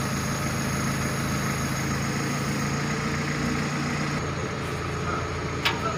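Steady, low hum of an idling diesel engine, with one short, sharp click near the end.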